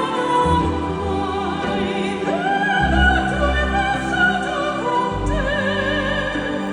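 Operatic singing with orchestral accompaniment: a singer comes in with a long note with vibrato about two seconds in, and another near the end, over the orchestra.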